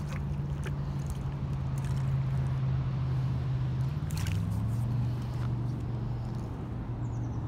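A motor hums steadily at a low pitch, which drops a little about four seconds in, with a few small clicks over it.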